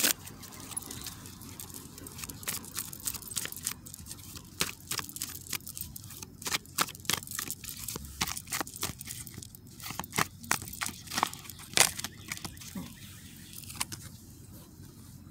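A deck of tarot cards being shuffled and handled: a run of irregular sharp clicks and flicks, thinning out near the end.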